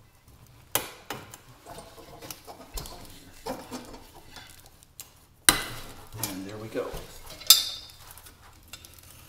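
Metal clinks and scrapes of a long screwdriver against the rusty steel burner frame and fount of an old Coleman lantern as it is levered and turned. There are sharp metal knocks about a second in, just past halfway, and loudest about three-quarters through.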